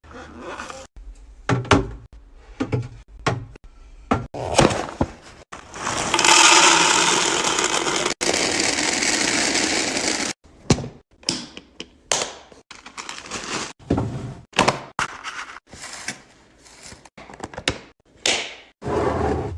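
Food containers and packaging being handled and set down, a run of knocks, clicks and rattles, with a steady rushing noise lasting about four seconds in the middle.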